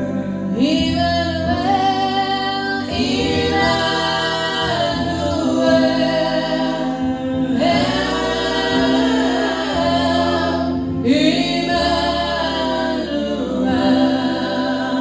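Several voices singing a slow song in harmony, held notes gliding between phrases, over sustained keyboard chords.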